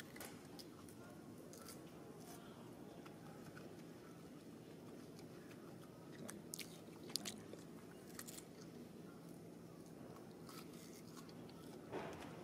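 A macaque biting and chewing a piece of cucumber: scattered faint crunching clicks, bunched about six to eight seconds in and again near the end, over steady low background noise.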